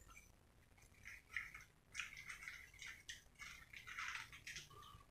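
Faint eating sounds from bakso (meatball soup) eaten with a spoon and fork: chewing and slurping in short, irregular bursts, with a few small clicks.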